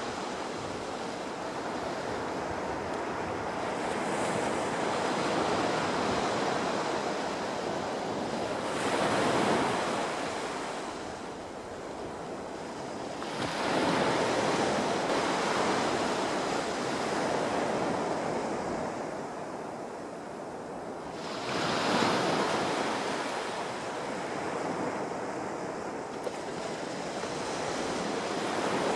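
Small sea waves breaking and washing up a sandy shore. The hiss of the surf rises and falls, with three louder surges as bigger waves break.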